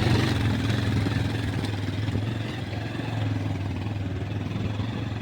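A motor vehicle's engine running steadily at an even, low pitch.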